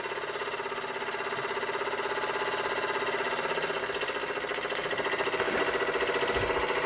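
Albury Manor Mark IV model steam engine, a single oscillating-cylinder engine with a brass flywheel, running on steam with a rapid, even beat that grows slightly louder.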